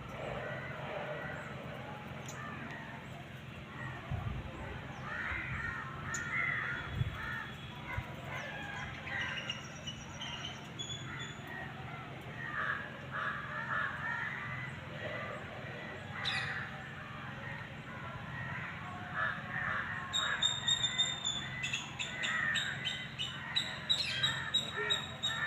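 A bird calling repeatedly in series of short notes, with a run of quicker, clicking notes near the end.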